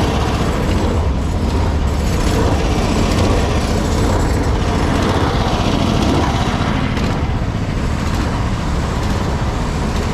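Service truck engine idling steadily with a deep, even rumble.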